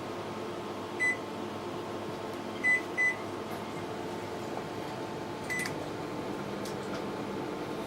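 LG IntelliWave microwave's control panel beeping as its keys are pressed: four short, same-pitched beeps, one about a second in, two in quick succession a couple of seconds later, and a last one past the middle, over a steady low hum.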